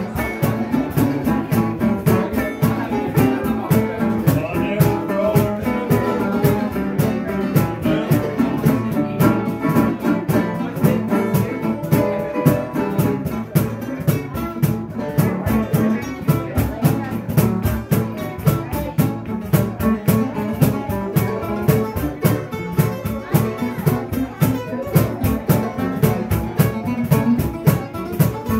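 Live acoustic band music: a cajon beating a steady rhythm under a metal-bodied resonator guitar and other guitars.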